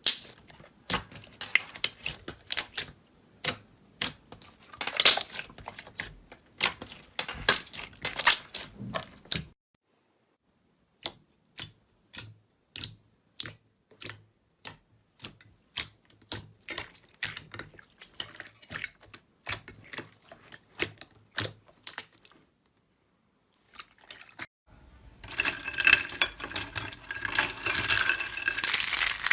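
Slime being pressed and poked, giving sharp clicks and pops. After a short silence come evenly spaced clicks, about two or three a second, then another pause, and near the end a dense crackling.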